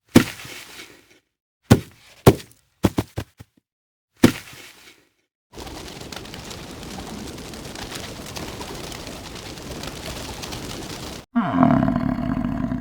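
A run of short sharp clicks or knocks, then a stretch of steady noise, then an animal's deep roar that starts suddenly near the end.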